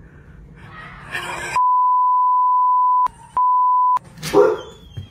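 Censor bleep: a steady, high, pure beep held about a second and a half, a short break, then a shorter beep, over what is being said. Just after it comes a brief loud burst of sound.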